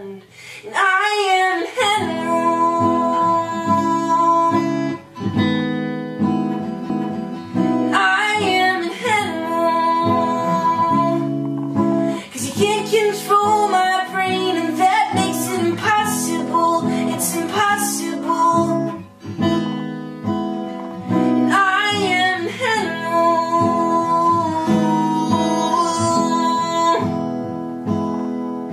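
Acoustic guitar strummed, with a male voice singing over it and holding long notes.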